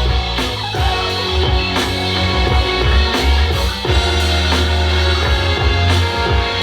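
Instrumental passage of a pop-rock song played back over speakers in a room: drum kit keeping a steady beat under electric guitar and bass, with no singing.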